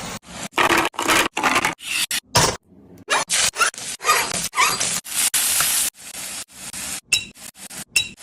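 Kitchen cooking sounds in quick edited cuts: utensils scraping and clinking, each snippet breaking off suddenly.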